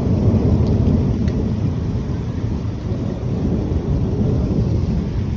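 Strong storm wind buffeting the microphone: a loud, gusting low rumble.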